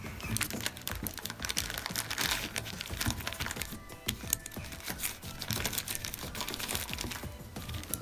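Metal links of an Einhell chainsaw chain clicking and rattling as the chain is worked off the guide bar by hand, in a quick, irregular run of small clicks. Quiet background music underneath.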